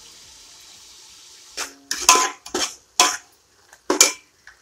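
A metal spatula scraping and knocking against an aluminium pot as the frying food is stirred: about six sharp scrapes in the second half, after a faint steady sizzle of frying.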